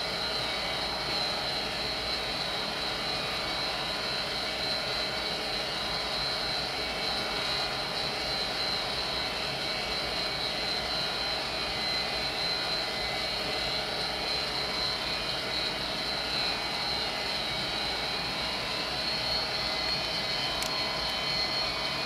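Vintage Armstrong gas furnace running steadily: an even rush of air with a steady high whine over it.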